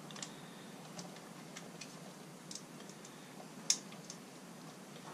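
A screwdriver turning the cable clamp screws on a blue caravan hook-up plug. It makes faint, irregular small clicks of metal against the screw and the plastic housing, with one sharper click a little under four seconds in.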